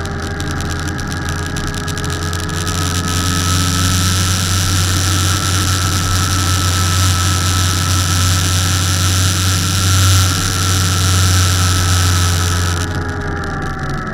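Motorcycle engine running at a steady cruise, heard from the rider's seat. A steady hiss comes in about three seconds in and cuts off near the end, as the engine note eases down slightly.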